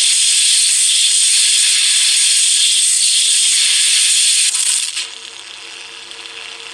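Lightsaber sound board playing a blade sound through a small 24 mm bass speaker: a loud, steady hissing crackle with a faint hum beneath it. It drops to a lower level about five seconds in.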